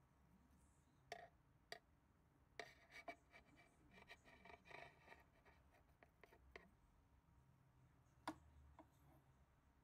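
Faint clicks and scratchy rustling of metal planting tweezers working plants into damp soil and bark, busiest in the middle, with one sharper click near the end.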